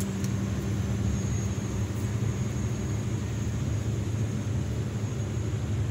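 A steady low rumble with no speech.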